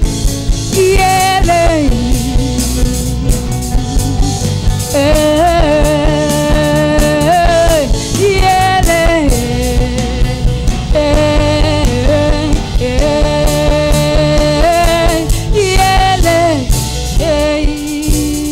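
Gospel band music: a drum kit keeping a steady beat over a strong bass, with a sliding, held lead melody on top.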